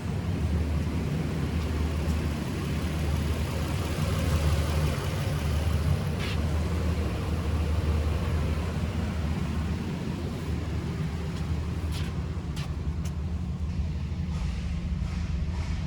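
The 2009 Suzuki Equator RMZ-4 pickup's engine running steadily at idle, with a few light clicks about twelve seconds in.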